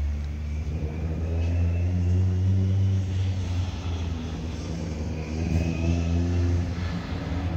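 Car engine running close by at a low, steady idle, its level swelling twice as the revs rise slightly.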